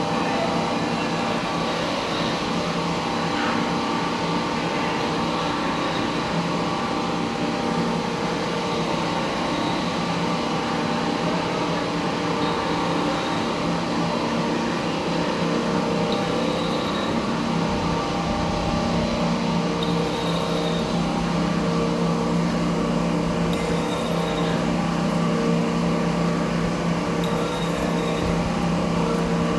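Vertical lathe running steadily, its rotating table and drive giving a constant hum of several steady tones as it turns a stack of welded steel plates, with a few faint ticks in the second half.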